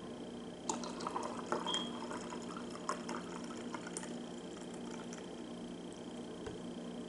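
Eggnog poured from a jug into a stemmed glass holding rum, filling it: a burst of gurgling and splashing in the first few seconds, then a quieter steady pour.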